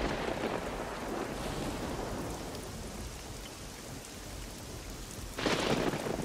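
Thunderstorm: steady rain with thunder rumbling, and a louder thunderclap breaking in about five seconds in.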